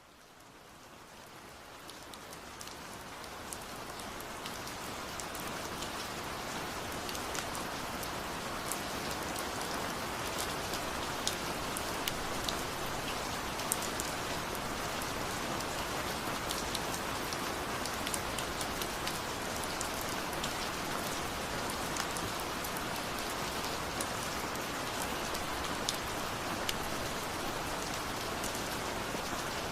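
Waterfall: a steady rush of falling water with many small sharp splashes scattered through it, fading in over the first few seconds.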